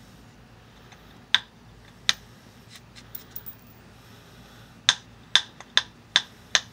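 Copper-capped billet striking the edge of a stone preform in flintknapping, making sharp stone-on-copper clicks. There are two single strikes, a few faint taps, then a quick run of about six strikes near the end as small blending flakes are knocked off the edge.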